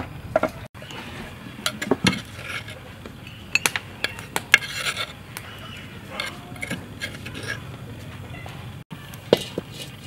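A wooden pestle thumps into a wooden mortar a couple of times. Then come scattered clinks and scrapes of a utensil against the mortar and a china plate as ground yellow spice paste is emptied out, and a few knocks near the end.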